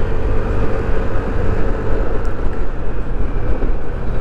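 Yamaha NMAX 155 scooter ridden over a rough, rutted road: steady engine and riding noise, with a held steady whine that stops about two seconds in.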